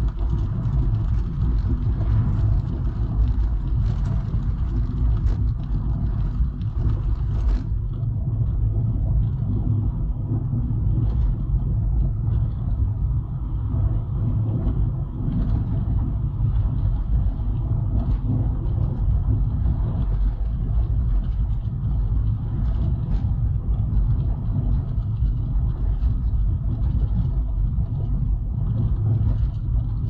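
A car driving at a steady speed on rough, cracked asphalt: a steady low rumble of tyre and road noise, with occasional small knocks from the bumpy surface. The higher hiss softens about seven seconds in.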